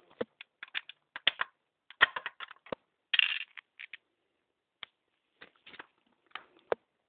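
Irregular light clicks and clatters of a small hard object on a hard surface, about twenty in all, thinning out over the last few seconds. There is a brief scrape about three seconds in.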